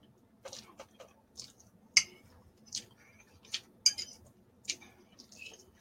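Close-up eating of thick, chewy Korean spicy noodles with a fork: a series of short, sharp wet clicks and smacks from chewing, and the fork against the bowl, roughly one a second.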